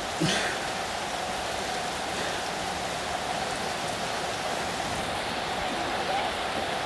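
Steady rain falling and pattering on the ground, a constant even hiss of drops. A brief sharp sound stands out just after the start.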